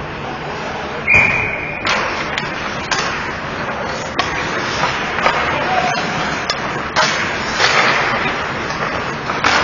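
Ice hockey play in a rink: skates scraping the ice, sharp clacks of sticks and puck, and several hard knocks like a puck or body hitting the boards, with a short high tone about a second in and players calling out.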